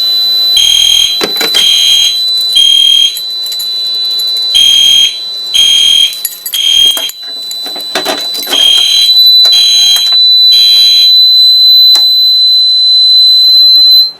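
Fire alarm system in alarm: horns sound the temporal-three pattern, three short beeps then a pause, three times over, above a steady high-pitched tone that cuts off abruptly at the end.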